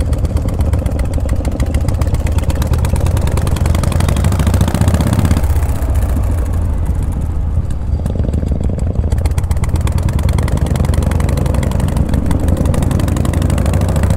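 Vintage Harley-Davidson V-twin motorcycle engine running as the bike is ridden off, its note changing about five and eight seconds in.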